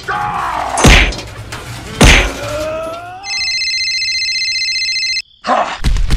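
Two heavy thumps about a second apart, each with a strained, falling groan, then an electronic phone ringtone of steady pulsing tones for about two seconds, and a short burst of clatter near the end.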